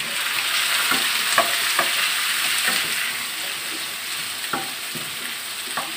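Chopped pineapple, tomato and bell pepper sizzling in hot oil in a frying pan as they go in, stirred with a wooden spatula that knocks against the pan now and then. The sizzle is loudest in the first couple of seconds and eases a little after.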